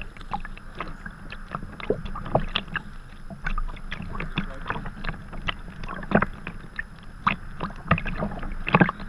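Sea kayak being paddled: the double-bladed paddle dips and splashes on each stroke, and water slaps and splashes against the kayak's hull. Many small splashes run through it, with louder ones about six seconds in and near the end.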